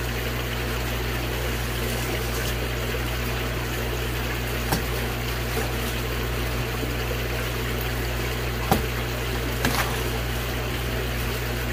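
Steady rush of running water with a low pump hum, from the hose and pump used to acclimate the fish. A few short clicks and knocks come near the middle and toward the end, as the cardboard box is cut open and its lid lifted away.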